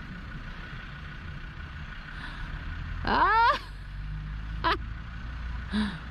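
Steady low rumble of a hot air balloon's propane burner firing as the balloon climbs overhead. A person gives one loud rising whoop about three seconds in, with two short calls after it.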